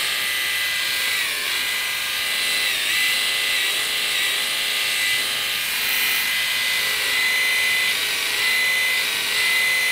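Remington EP7011AU epilator running on its slower speed setting as it is drawn over forearm hair, pulling the hairs out. The steady whine dips briefly in pitch five or six times.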